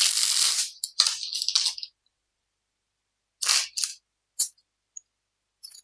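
Tarot cards being handled: short rustling and sliding sounds as cards are drawn from the deck and laid on the table, one longer stretch in the first two seconds, then a few brief ones.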